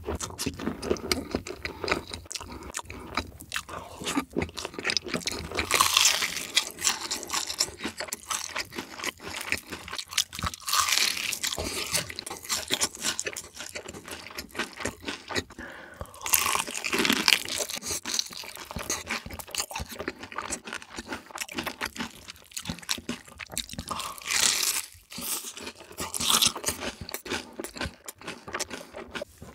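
Close-miked eating: a person biting into and chewing crispy fried chicken, with crunching and wet chewing, and several louder crunching bites spread through.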